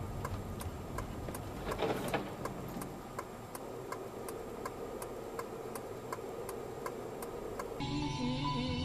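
Car turn-signal relay ticking steadily in the cabin, about three ticks a second, over low engine and road rumble, with a brief whoosh about two seconds in. Near the end the ticking stops abruptly and gives way to steady tones over a loud low hum.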